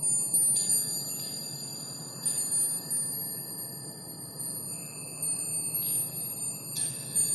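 Bell-like chimes ringing in sustained high tones, with a few soft new chime strikes at irregular moments, over a low steady hum: a sparkling, festive sound bed.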